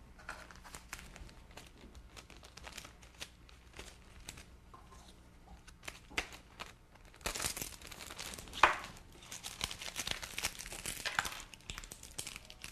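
Plastic specimen bag and paper-and-plastic wrappers crinkling and rustling as gloved hands handle them, with the bag's seal being pressed shut. The rustling grows busier and louder past the middle, with one sharp loud crackle.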